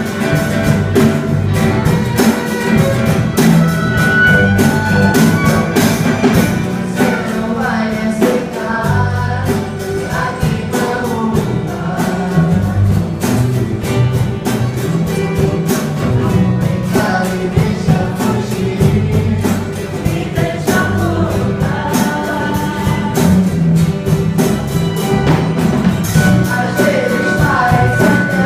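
A band playing a song with drums, bass and singing.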